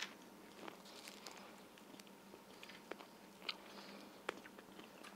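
Faint bites and chewing of a crisp baked mantia pastry: a few scattered small crunches.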